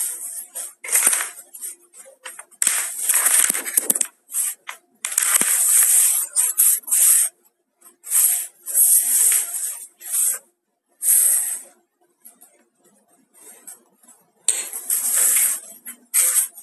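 Handling noise on a phone's microphone as the phone is picked up and moved: bursts of rustling and scraping, on and off, with short quiet gaps between them.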